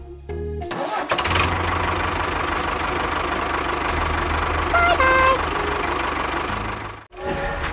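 Tractor engine starting up and then running steadily. About five seconds in, a short pitched two-note tone sounds, and the engine sound cuts off abruptly shortly before the end.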